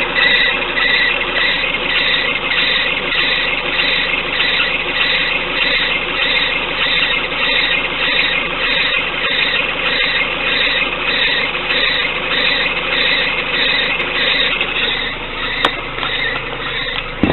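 Peugeot 206 GTi engine running cold with an annoying high squeal pulsing evenly about three times a second over the steady running. This noise appears only when the engine is cold and fades away after a few minutes of warming up.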